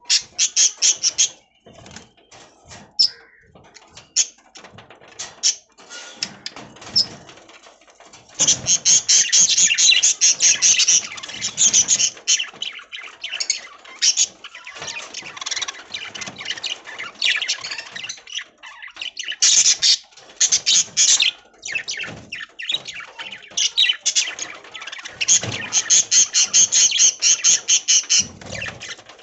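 Budgerigars chirping and warbling in rapid busy chatter, with louder stretches of dense chirping about a third of the way in and again near the end.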